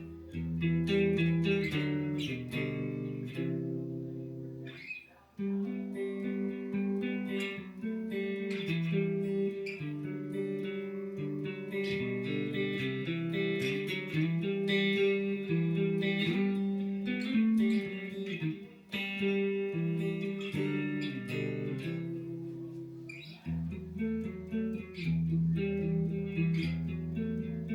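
Guitar playing: a continuous passage of picked notes and chords, with short breaks about five seconds in and again near nineteen seconds.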